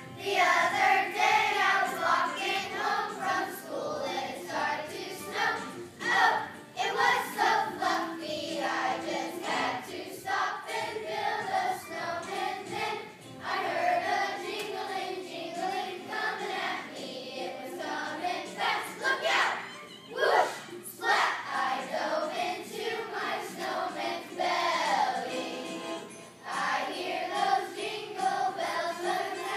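Children's choir singing together, led by a conductor.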